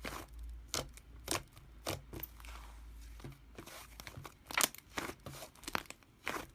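Slime being squeezed and poked, giving scattered crackling clicks and small pops, busiest between about four and a half and six seconds in.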